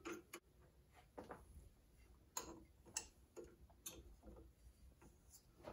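A few faint, scattered clicks and taps from tooling being handled at a milling machine's spindle as an end mill is fitted.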